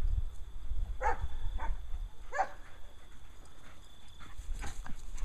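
A dog giving a few short barks: one about a second in, two more over the next second and a half, and a fainter one near the end, over a low rumble.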